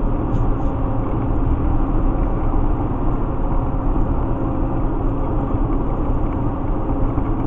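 Steady low rumble of road and engine noise inside the cabin of a car driving on a highway, with a faint steady hum.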